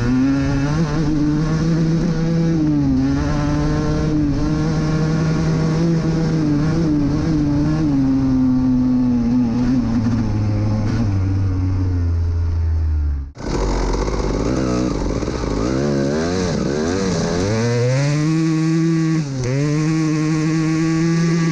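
Honda CR250's 250 cc single-cylinder two-stroke engine running hard under throttle, rising and falling in pitch through gear changes. About two-thirds in, the sound breaks off and comes back with the engine revving up and down repeatedly.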